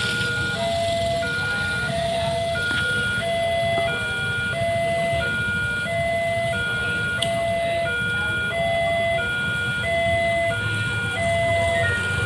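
Railway level-crossing warning alarm sounding a steady electronic two-tone signal, low and high tones alternating about every two-thirds of a second, the warning that a train is approaching. Motorcycle engines idle beneath it.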